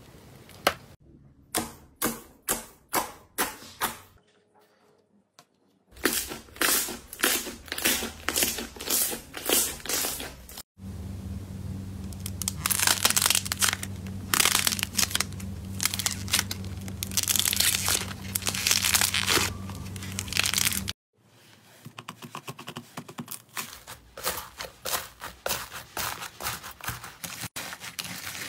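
Slime ASMR handling sounds in several short clips: slime pressed through a metal grid with a tool in repeated strokes, a squishy toy being squeezed, and hands kneading slime full of beads. All three give squishing and crackling sounds. A steady low hum runs under the middle part.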